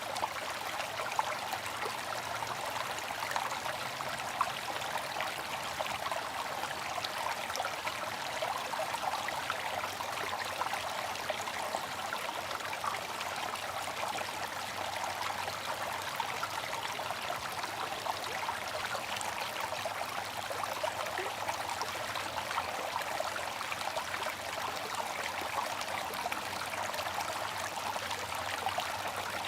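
Bamboo water fountain: water trickling and splashing steadily, in an even run of small droplet splashes with no pauses.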